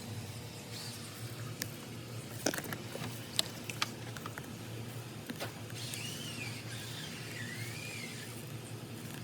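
A few sharp clicks and knocks of hand tools on the car's metal parts during AC compressor removal, over a steady low hum. About six seconds in come two high squeaks that rise and fall.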